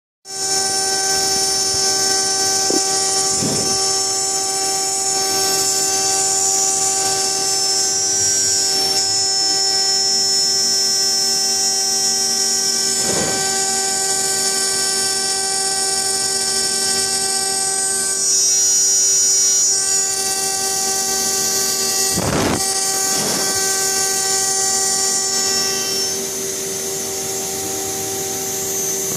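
CNC router spindle running steadily while milling a turbine diffuser, a continuous high-pitched whine over several steady lower tones, with a few short sweeping sounds and a brief louder stretch about two-thirds of the way in.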